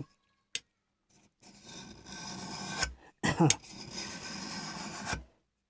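A very fine file draw-filing the cast iron body of a hand plane: two slow strokes, each about a second and a half long, with a brief vocal sound between them.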